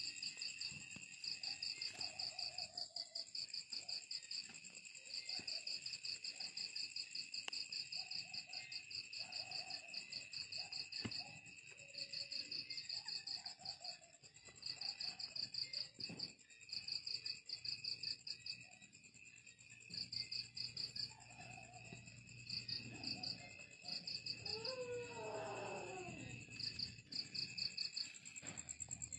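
Night insects: crickets chirping in pulsed trains of a few seconds each, over a steady high insect buzz. About three-quarters of the way through, a brief call slides down in pitch.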